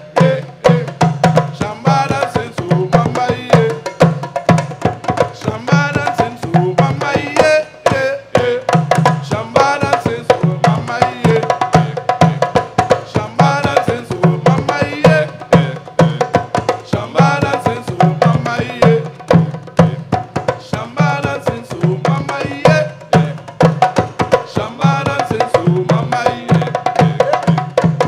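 An ensemble of rope-tuned hand drums playing a fast, steady rhythm, with a man singing over them.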